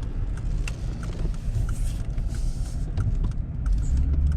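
Car interior road noise while driving: a steady low rumble from the engine and tyres, with a few faint ticks.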